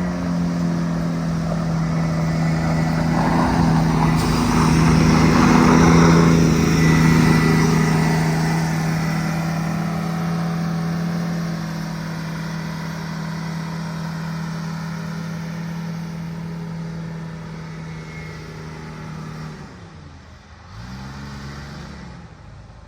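Wanderlodge bus engine running steadily, swelling louder for a few seconds around five seconds in and then easing back. Near the end its pitch briefly dips and climbs back up.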